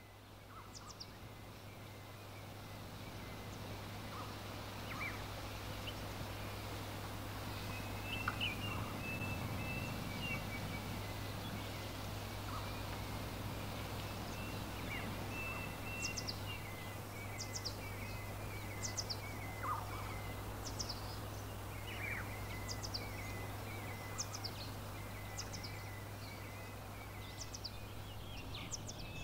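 Small garden birds chirping and twittering over a steady low outdoor rumble. The twittering starts about a quarter of the way in, and from about halfway a thin, high, falling chirp repeats roughly once a second.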